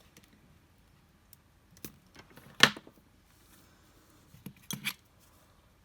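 Small metal clicks of jewelry pliers and wire parts being handled: a few scattered sharp clicks, the loudest about two and a half seconds in and a quick pair near the end.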